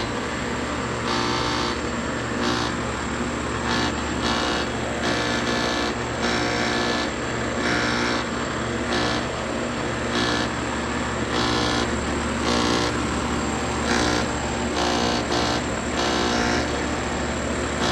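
Air conditioner compressor unit running with a steady hum and a rattling buzz that flares up irregularly, about once a second. The owner suspects a bad electrical board may be behind it.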